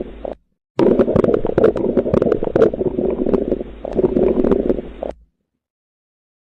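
Bowel sounds: after a brief break near the start, a long stretch of continuous gurgling with many small crackles and pops, cutting off suddenly about two-thirds of the way through.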